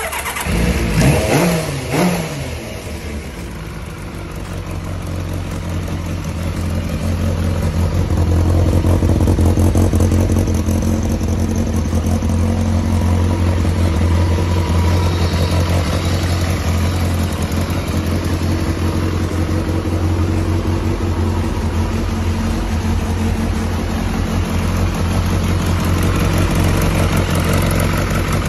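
1990 Kawasaki ZX-7's inline-four engine starting from cold. It catches and revs up and back down twice in the first couple of seconds, then settles into a steady idle.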